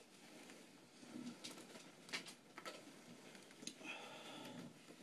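Near silence with faint rustling and a few light clicks of tactical gear and straps being handled.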